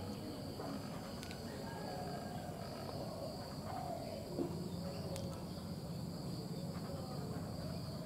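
Outdoor ambience dominated by a steady, high-pitched insect drone, with faint scattered bird chirps and a single short thump about four and a half seconds in.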